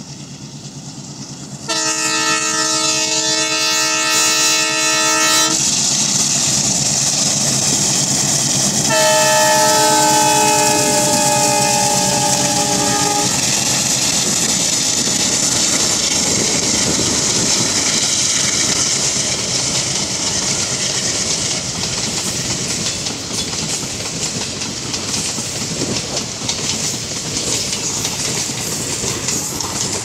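WDM3D diesel locomotive's horn sounding two long blasts of about four seconds each, the second sliding slightly down in pitch as it passes. Then the passenger coaches roll by with a steady rumble and clickety-clack of wheels over rail joints.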